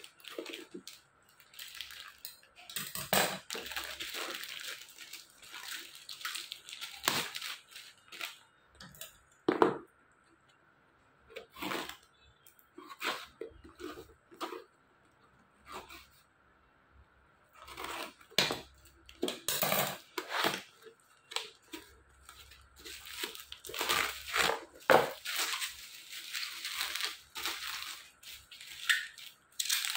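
Parcel packaging being handled: a plastic courier mailer snipped with scissors, a cardboard box opened, and bubble wrap crinkling, in irregular rustling bursts with a few short pauses.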